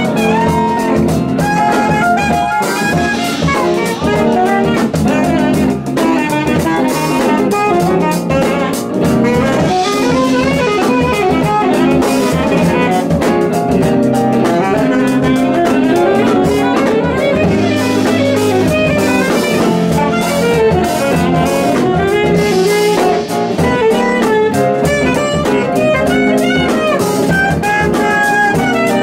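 Jazz band playing live: saxophone, electric bass, a solid-body and an archtop electric guitar, and a drum kit with cymbals.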